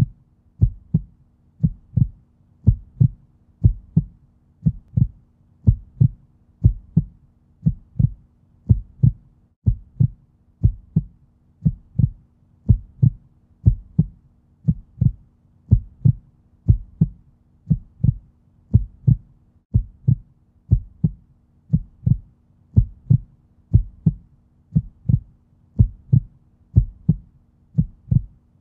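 Heartbeat sound effect: a low double thump, lub-dub, repeating steadily about once a second over a faint low hum.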